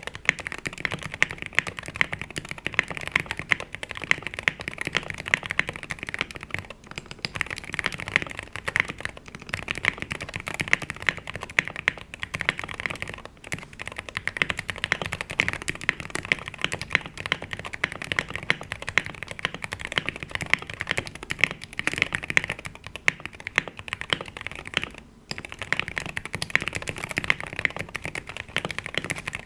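Fast, continuous typing on a Wooting 60HE keyboard with Gateron Lekker magnetic switches and PBT keycaps, in a Tofu 60 Redux case dampened with foam, tape and O-ring mods. The dense keystrokes break off in a few brief pauses.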